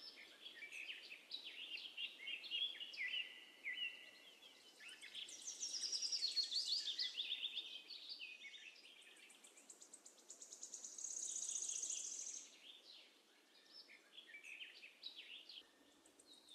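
Faint birdsong: several small birds chirping with many short high calls, and two longer rapid high trills, about five seconds in and again about eleven seconds in.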